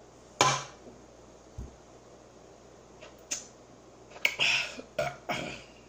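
Close-up eating sounds of fried chicken being bitten, chewed and pulled apart: short, sharp mouth smacks and crackles. The loudest comes about half a second in, and a quick run of them follows from about three seconds on.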